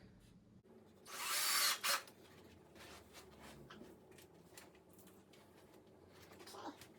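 Ryobi cordless drill driving a screw in one short run of about a second, stopping sharply, followed by faint clicks of handling the hardware.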